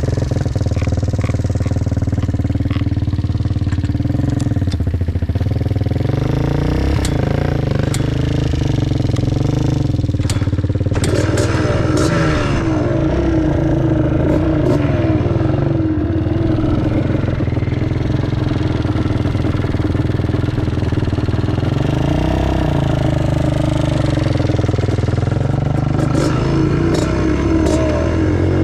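Small off-road motorcycle or quad engine running and being revved up and down, its pitch rising and falling through the gears. It runs harder from about a third of the way in.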